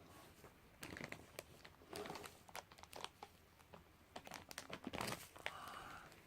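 Faint crinkling of plastic candy packaging being handled, in scattered short crackles.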